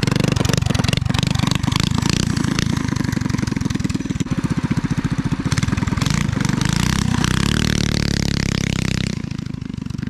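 Harbor Freight Predator single-cylinder engine on a mini bike with a torque converter, running hard at full throttle through a launch. The engine note shifts in pitch near the end and the sound drops off about a second before the end.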